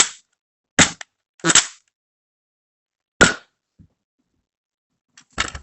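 NERF Alpha Strike Cobra RC6 blaster being primed and fired: a handful of sharp plastic clacks about a second apart, then a quicker clatter near the end.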